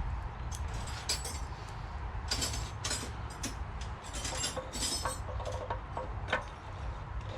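Small metal parts and tools clinking and tapping as they are handled on a workbench, in a run of short bright clinks over a steady low hum.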